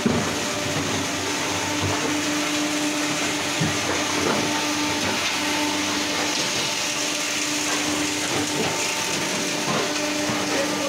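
Stand-type autofeeder block-making machine running: its belt conveyor and geared electric motors give a steady mechanical hum with rattling and a few small knocks.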